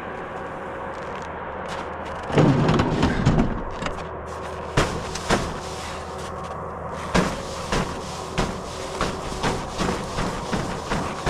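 Footsteps crunching on icy ground, about two steps a second from around seven seconds in. A louder crunch or knock comes about two and a half seconds in.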